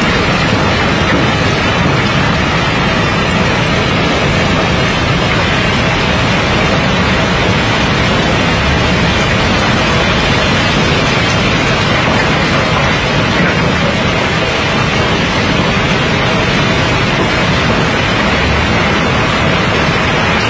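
Steady, loud rattling rush of rounded river stones sliding down a large pile and clattering into a chute.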